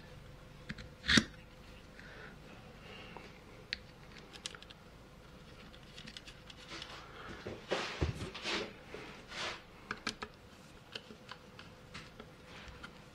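Ertl Case 1030 toy tractor's plastic wheel and rubber tyre being handled and pushed onto the axle: a sharp click about a second in, then a run of small clicks and short rubbing noises around the middle, with scattered light ticks after.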